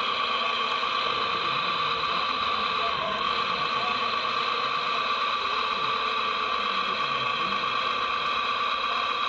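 Hydraulic pump of a radio-controlled model Volvo crawler excavator, running as a steady high whine while the arm and sorting grab are worked.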